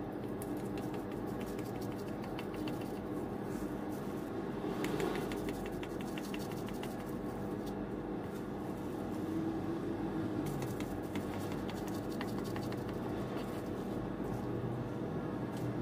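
Kitchen knife cutting through a steamed red bean cake on a plastic-wrapped cutting board: soft clicks and crackles in small clusters over a steady low hum.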